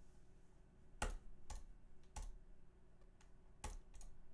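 Five sharp, unevenly spaced clicks of a computer mouse and keyboard, the loudest about a second in and near the end.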